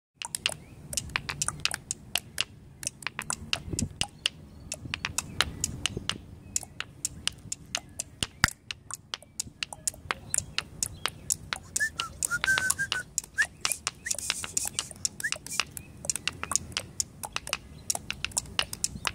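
Small stones being tapped and struck against a stone pavement, making rapid, uneven clicking in an improvised rhythm. A few short high whistle-like chirps sound about twelve seconds in.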